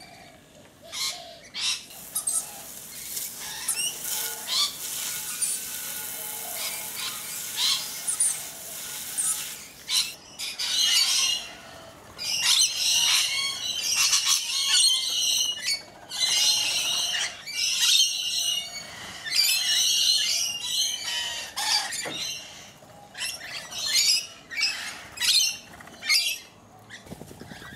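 Flock of rainbow lorikeets screeching and chattering while feeding. A steady high chatter at first gives way, about ten seconds in, to loud screeching bouts a second or two long, one after another, thinning to shorter separate calls near the end.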